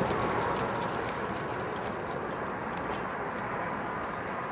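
Steady outdoor background noise at a fireworks display between shells, a low rumbling haze that slowly fades, with a few faint scattered pops.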